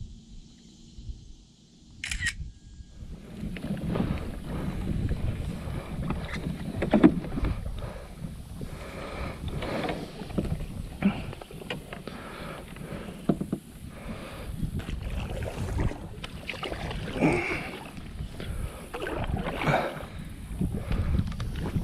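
Jackson Big Rig FD kayak moving through lily pads, the hull swishing and brushing through the pads with small water splashes. This starts about three seconds in, after a brief high chirp.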